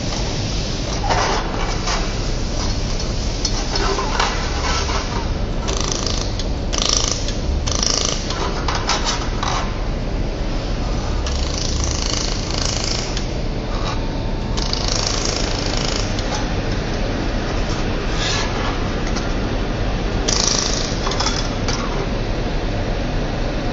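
Laser welding machine running: a steady hum and whir, with repeated bursts of hissing lasting a second or so.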